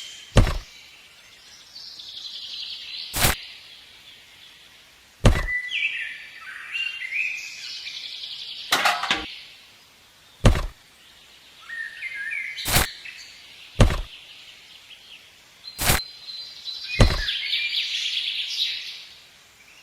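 Birds chirping and twittering in short high phrases, with a sharp click every second or two.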